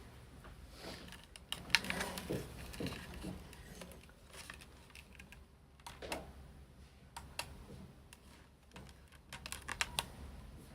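Irregular light clicks and taps, like typing or small objects being handled, with a cluster near the end.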